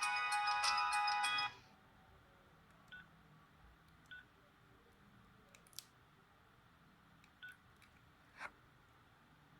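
Philips 760 mobile phone ringtone melody playing through the phone's small speaker, cutting off sharply about a second and a half in. After it come a few faint, short beeps and clicks spread over several seconds.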